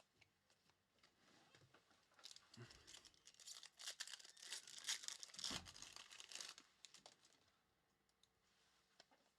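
A wrapper on a pack of basketball trading cards being torn open and crinkled, a dense crackling run that lasts about four seconds in the middle and is loudest just past halfway.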